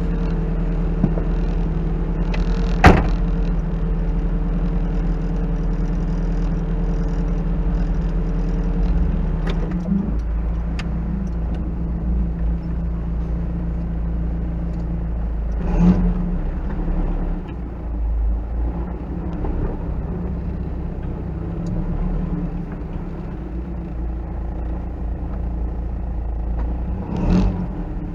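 A 1986 Toyota off-road truck's engine running steadily at low speed while rock crawling. There is a sharp knock about three seconds in and duller thumps around the middle and near the end.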